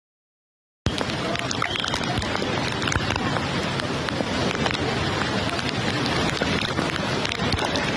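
Steady rush of floodwater with wind buffeting the microphone, dotted with many small crackles. It cuts in about a second in, after a moment of silence.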